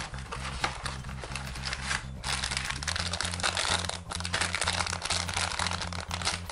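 Thin plastic bags crinkling as hands handle bagged plastic model-kit runners, over steady background music.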